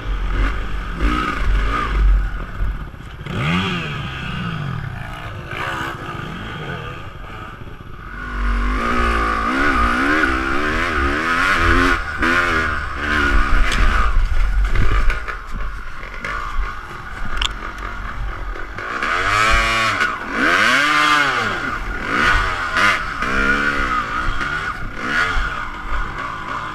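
Dirt bike engine revving up and down over and over as the rider works the throttle along a rough trail, with a low rumble of wind buffeting the microphone in places.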